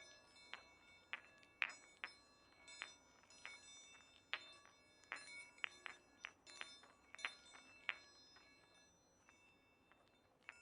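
Chinese Baoding stress balls turned in the hand, the metal balls clinking against each other and their inner chimes ringing. It is an irregular run of bright strikes, each with a short ringing tail, that thins out near the end.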